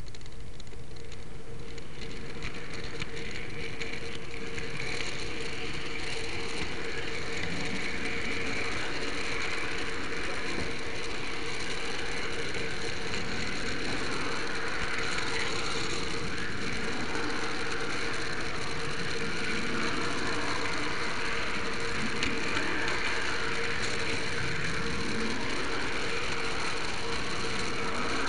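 H0m model train running, heard from a small camera riding on a flat wagon: steady rattle and clatter of the wheels on the track, with a motor whine that rises and falls in pitch as the train's speed changes.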